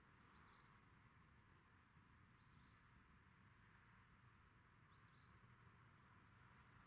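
Near silence: faint, high bird chirps several times over a low steady hiss.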